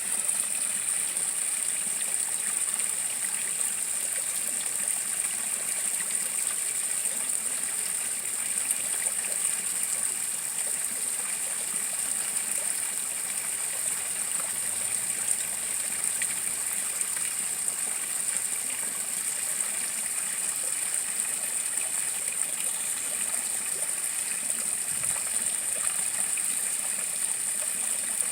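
Small garden waterfall splashing steadily into a koi pond: an even, unbroken rush of falling water with a bright, hissy top.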